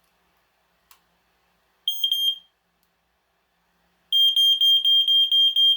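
FireX FX1218 smoke alarm's piezo horn sounding on its test button: a click, a short burst of the high shrill tone, then the full alarm from about four seconds in, pulsing rapidly. The test button is finicky, as on most FireX alarms, but the alarm works.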